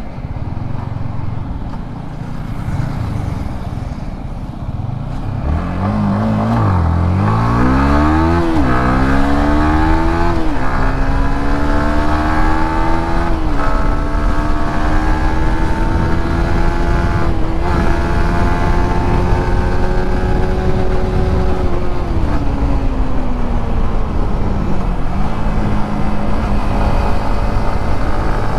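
Yamaha MT-15's 155 cc single-cylinder engine under hard acceleration, heard from the rider's seat. Its revs climb steeply with several sharp dips at the upshifts, hold high and steady at speed, then fall away as it slows. Wind rush runs underneath.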